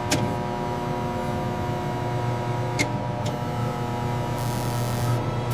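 Steady machine hum of a laser cutting machine: a low drone with several steady tones above it. Three sharp clicks break it, one at the very start and two close together about halfway through.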